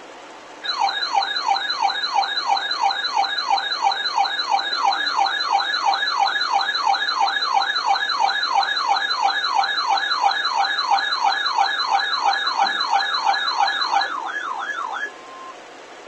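Weather radio's alert siren sounding for a Special Marine Warning: a loud electronic whoop rising over and over, a little under three sweeps a second. It cuts off about fifteen seconds in, followed by a brief steady beep.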